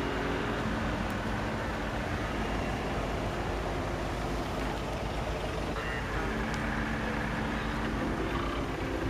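Steady city traffic rumble with faint voices in the background.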